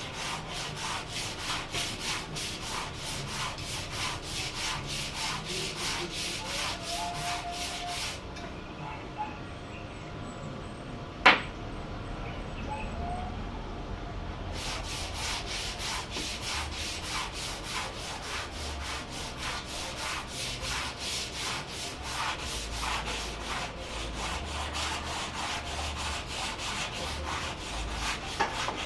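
Wood being sanded by hand in quick, even back-and-forth strokes, about three a second. The strokes stop for several seconds in the middle, where there is a single sharp click, then carry on.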